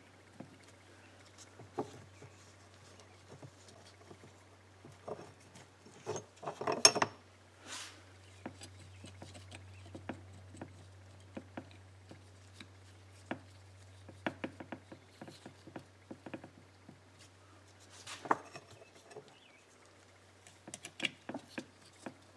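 Light metallic clicks and taps of clutch steels and friction plates being handled and seated in a motorcycle clutch basket, with rubber gloves rubbing, over a low steady hum. Louder clusters of knocks and rustle come about six to seven seconds in and again around eighteen seconds.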